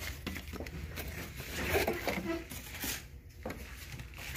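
Old paper envelopes and documents rustling and shuffling as they are handled and leafed through, with scattered short crinkles and taps.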